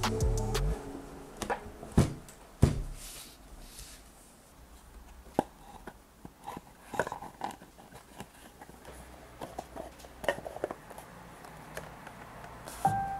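A cast resin block and its box-shaped cap handled and set in place on a tabletop: scattered light taps and knocks with soft handling noise between, and two sharper knocks about two and two and a half seconds in.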